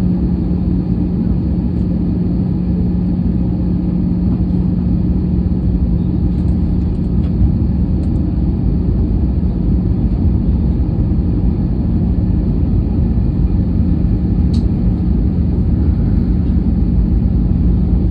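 Steady airflow and engine rumble inside the cabin of an Airbus A320-214 airliner, with a constant low hum running through it.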